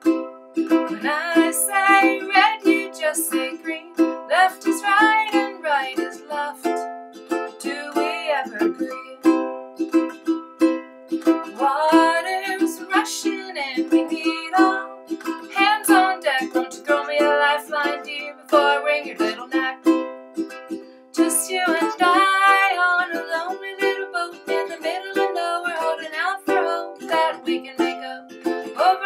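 A woman singing while she strums a ukulele, the strums keeping a steady rhythm under her voice.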